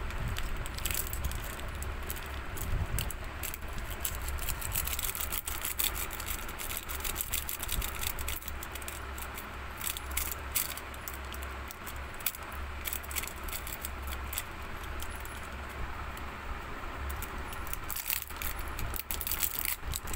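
Metallised plastic wrappers of Cadbury Dairy Milk Lolly chocolate lollipops crinkling and crackling as they are handled and opened, in a dense run of sharp crackles, over a low steady hum.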